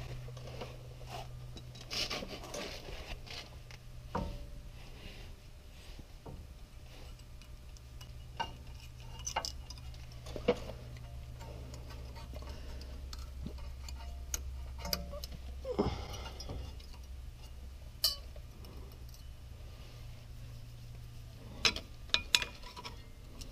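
Small metal clicks and clinks of brake hardware being handled at a truck's front brake, as pad clips are worked into the caliper bracket, over a steady low hum. A quick run of sharper clinks comes near the end.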